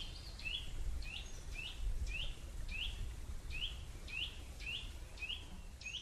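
Eurasian nuthatch singing its slow, rhythmic song: a steady series of short, clear whistled notes, about two a second.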